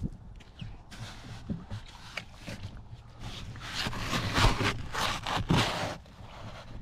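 Irregular scraping and crunching of sand and gravel from digging and sifting. The strokes come sparsely at first, then denser and louder from about three and a half seconds in.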